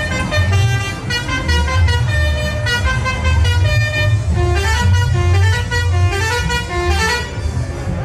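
Basuri musical horn on a Canter truck playing a tune of stepped notes, over a steady low rumble.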